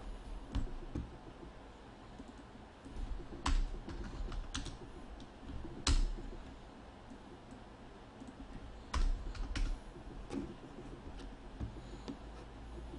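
Scattered clicks and taps on a computer keyboard, a handful of separate strokes with gaps between them rather than steady typing.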